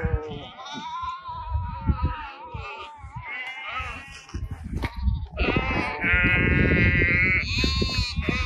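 Sheep of a migrating flock bleating, several calls overlapping. A shorter bleat comes about three and a half seconds in, and a long, loud, wavering bleat in the second half.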